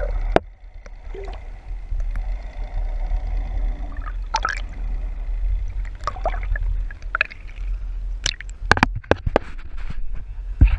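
Water gurgling and sloshing as heard by a camera held under the sea surface, over a low steady rumble, with several sharp knocks, one just after the start and a run of them in the second half.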